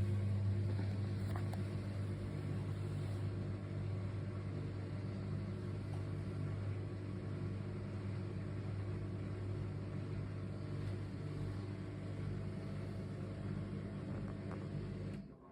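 Samsung washing machine running with a steady, even hum that cuts off suddenly near the end.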